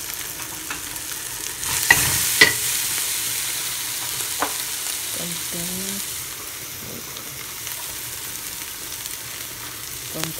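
Ground meat frying in hot oil in an aluminium pot, a steady sizzle while a wooden spatula stirs and scrapes it around. About two seconds in come two sharp knocks of the spatula against the pot, and the sizzle rises for a few seconds before settling back.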